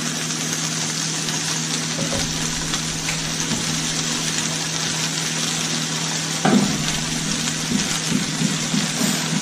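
Chicken, broccoli and potato sizzling steadily in a frying pan with teriyaki sauce, over a steady low hum. A single knock about six and a half seconds in.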